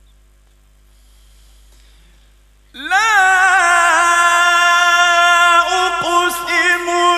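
A man's voice in melodic mujawwad-style Qur'an recitation. After a couple of seconds of faint hum, it enters suddenly and loudly, slides up into a long held note with small ornamented turns, and carries on to the end.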